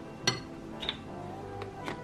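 A metal spoon clinks once, sharply, against a glass mixing bowl, followed by a couple of softer taps, over soft background music.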